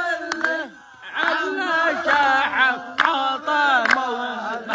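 A voice singing or chanting without accompaniment, in long held notes that waver and slide in pitch, with a short pause about a second in.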